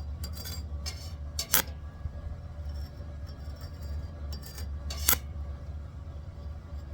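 A few sharp metallic clinks and taps from metal being handled, the loudest about a second and a half in and again about five seconds in, over a steady low hum.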